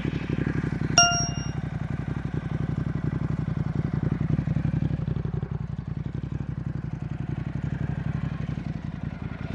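Motorcycle engine idling steadily. About a second in there is a single sharp metallic ding that rings briefly.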